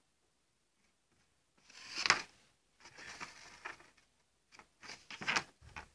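Paper rustling and scraping as a hand-drawn paper model bus is handled and moved about, in several short bursts after a quiet start, the loudest about two seconds in.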